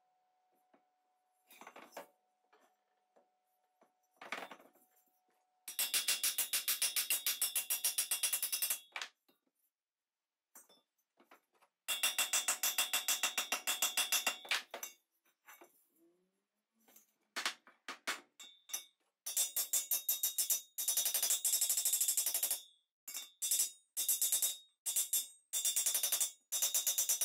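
Rapid light hammer taps on the thin metal shell of a Tilley FL6 lamp, struck against a dolly held behind the metal, beating out dents. The taps ring and come in three long runs of many strikes a second, with a few single taps between them.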